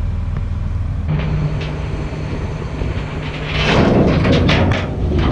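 Heavy construction machine's diesel engine running steadily; about halfway through, louder clanking and scraping sets in.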